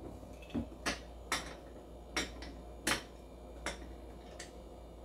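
A run of light clicks and knocks, about seven spread over a few seconds, from bar tools and a hand-held citrus press being handled and worked at a countertop as lime halves are pressed for juice.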